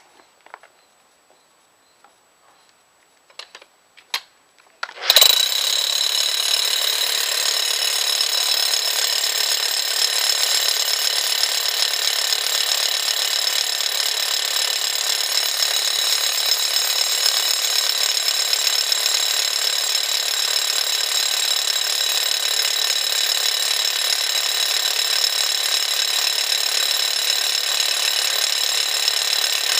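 Bosch 11245EVS rotary hammer drilling into solid rock with a dull 1.5-inch bit. It starts abruptly about five seconds in, after a few faint clicks, and then runs loud and steady.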